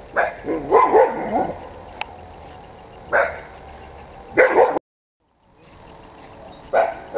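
A dog barking in short, separate barks: a quick run in the first second and a half, then single barks about three and four and a half seconds in. The sound cuts out briefly just before five seconds.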